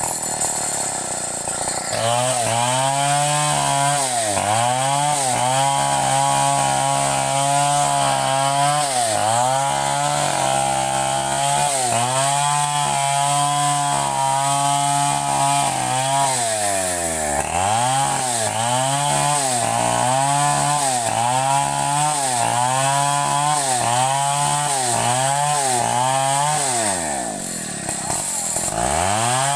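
Chainsaw engine running at high revs and cutting wood. It comes up to full speed about two seconds in, then its pitch sags and recovers again and again as the chain bites, with two deeper drops, one near the middle and one near the end.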